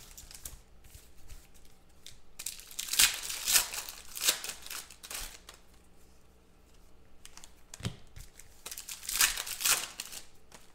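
Foil trading card pack wrappers being crinkled and torn open by hand, in two spells of crackly rustling with quieter handling between.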